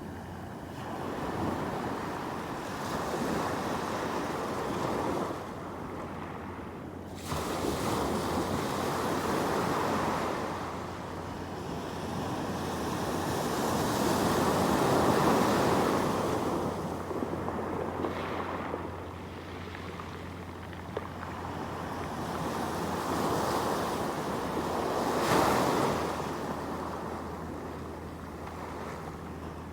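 Sea waves breaking and washing ashore, surging and ebbing in swells several seconds apart, with a sudden surge about seven seconds in and a sharp crash about twenty-five seconds in.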